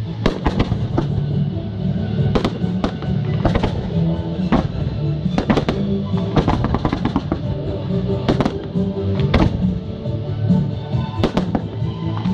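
Fireworks bursting, a string of sharp bangs coming irregularly about once or twice a second, over music with long held notes.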